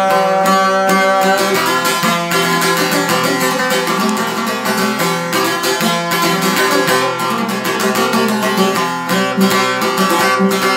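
Çifteli, the two-stringed Albanian long-necked lute, strummed rapidly and steadily as a solo instrumental passage without singing.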